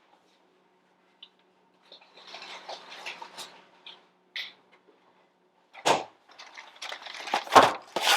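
Kitchen handling sounds: soft rustling, then a few sharp knocks and thumps, the loudest near the end.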